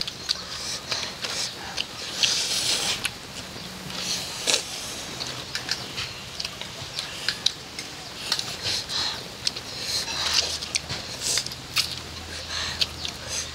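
Close mukbang eating noises from extra-spicy instant noodles: wet slurps, chewing and lip smacks with many short clicks, and breathy sucked-in air between mouthfuls.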